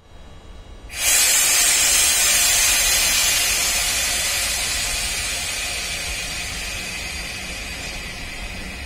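Compressed air hissing from an EP07 electric locomotive: a loud hiss starts suddenly about a second in and slowly dies away, over a low rumble.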